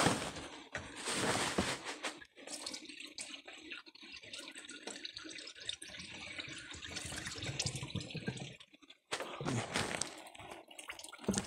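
Liquid being poured from a jug into a truck's radiator, an irregular pouring and splashing with a brief stop near the end. The cooling system is being refilled after losing its coolant.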